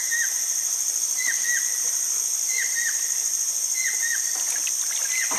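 Steady high-pitched drone of forest insects, with a bird repeating a short call of two quick downward-sliding notes about every second and a quarter.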